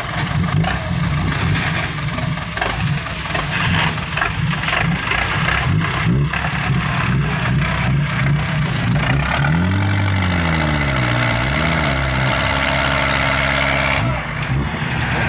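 A vehicle engine running unevenly, then revving: its pitch rises and falls a couple of times about ten seconds in before holding steady at a higher speed.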